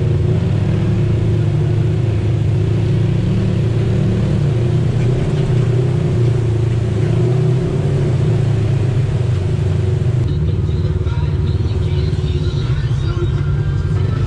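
Polaris RZR side-by-side engine running under way: a loud, steady low drone, held at an even pace with no revving.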